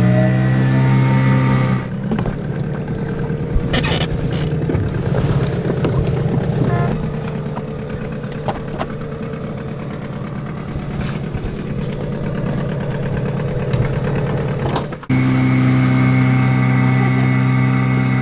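Small petrol outboard motor on a dinghy running, its pitch rising over the first second or two and then running steadily. About 15 seconds in there is an abrupt cut to the motor running steadily again.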